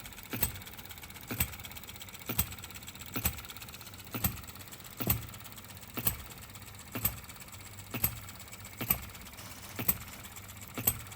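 Scale-model hit-and-miss engine, a replica of a 1910 ball-top Monitor, running with a sharp firing pop about once a second, each led by a lighter click, over a faint steady hum.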